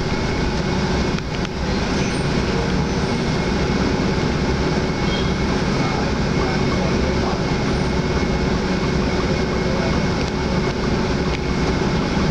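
Steady engine rumble and hum inside the cabin of a Hyundai Universe coach. The bus creeps forward in traffic and then waits at a red light.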